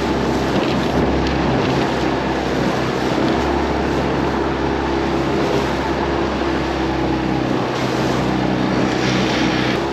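Outboard motor pushing a small inflatable boat along at speed: a steady, unchanging engine note under a wash of wind and water noise.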